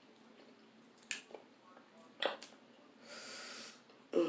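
A few short sharp cracks and snaps of a seafood shell being broken open by hand, with a half-second breathy snort through the nose about three seconds in.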